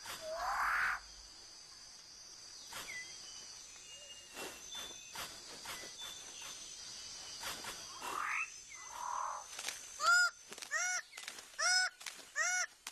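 Rainforest birds calling: a loud rising call at the start, scattered sharp clicks and short calls through the middle, then a run of repeated harsh calls, about two a second, over the last three seconds.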